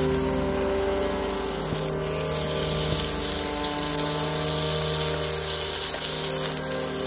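Thin slice of wagyu beef sizzling as it sears in a hot pan; the hiss starts about two seconds in and holds steady.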